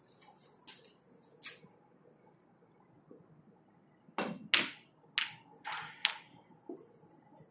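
Snooker cue and balls: two light clicks early, then a shot played about four seconds in, a run of five sharp clacks of cue on ball and ball on ball within two seconds.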